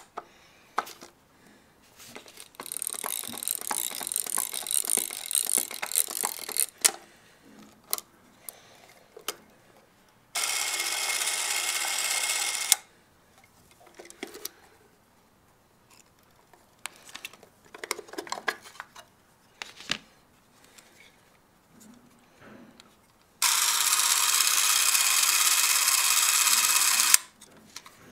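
Bell & Howell 624 EE Autoset 8mm spring-wound movie camera: the winding key ratchets for a few seconds, then the clockwork drive runs with a steady whirr twice, once for about two seconds and later for about four, with small clicks of the mechanism and handling between.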